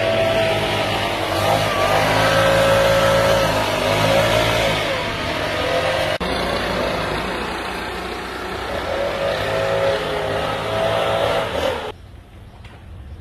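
A motor vehicle engine revving, its pitch rising and falling repeatedly, with an abrupt break about six seconds in. It stops suddenly near the end.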